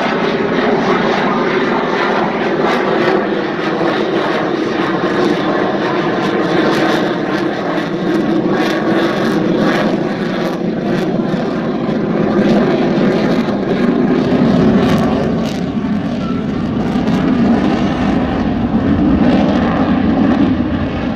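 F-22 Raptor fighter jet's twin turbofan engines heard as loud, steady jet noise during a flying display. The deep low rumble grows fuller about two-thirds of the way through.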